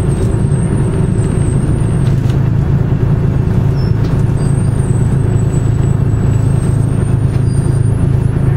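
1982 GMC Fishbowl transit bus under way, heard from inside the cabin: its Detroit Diesel 6V71N two-stroke V6 engine running at a steady pitch with a thin high whine above it.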